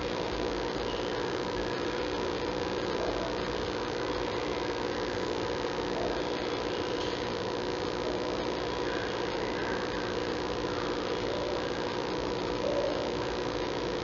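Steady electrical hum and hiss on the panda-cam audio feed, with a few faint brief sounds now and then, one slightly louder near the end.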